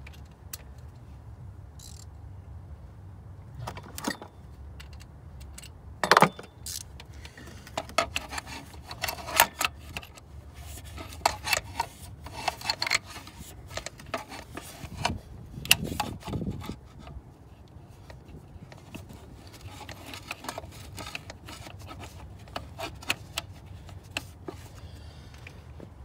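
A socket ratchet and other metal hand tools clicking and clinking as the ratchet is fitted and worked on bolts at the power steering pump pulley. Irregular sharp clicks come singly and in short bursts, over a faint steady low hum.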